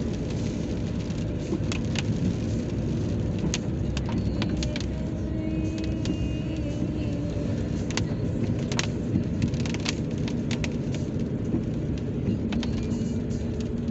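Car driving, heard from inside the cabin: a steady low rumble of engine and tyres on the road, with scattered sharp ticks.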